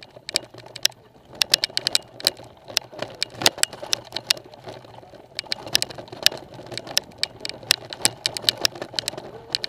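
Mountain bike rattling down a rough dirt trail: irregular sharp clicks and knocks from the bike jolting over the ground, over a low steady rumble of tyres on dirt.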